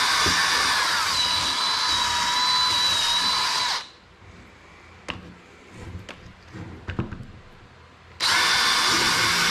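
DeWalt cordless drill driving screws through a pine block into the base of a deer antler. The motor runs steadily, its pitch dropping about a second in, stops for about four seconds of light knocks and handling, then runs again near the end.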